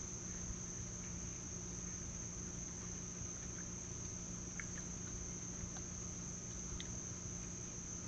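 Night insect chorus of crickets: a steady, unbroken high-pitched trill, with a faint low hum underneath.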